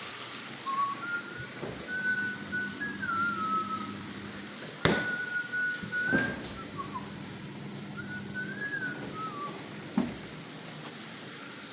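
A person whistling a tune, short melodic phrases with held notes and small slides. Two sharp knocks, one about five seconds in and one near the end, sound alongside it.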